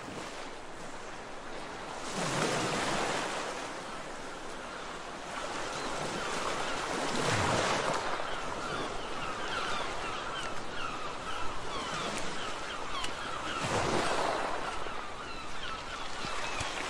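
Ocean waves washing in, a steady wash that swells three times, several seconds apart. In the second half there is a faint, rapid run of short high chirps over it.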